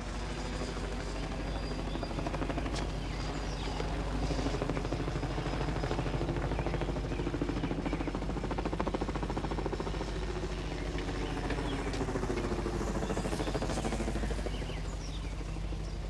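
A motor running with a rapid, even throb that swells somewhat in the middle.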